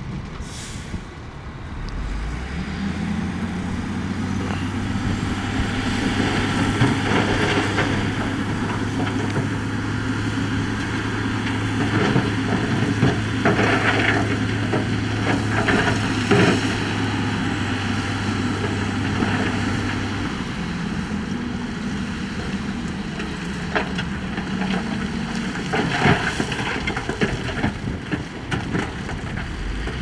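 Heavy diesel engine of earthmoving machinery running hard at a steady pitch. The engine comes up about two seconds in and drops back about twenty seconds in, with scattered clanks and knocks throughout.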